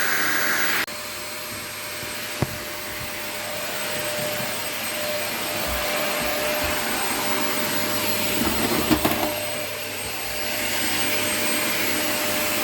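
Vacuum cleaner running with a steady whir; just under a second in it drops suddenly to a quieter level and carries on steadily, with a sharp click a couple of seconds in and a few knocks around nine seconds.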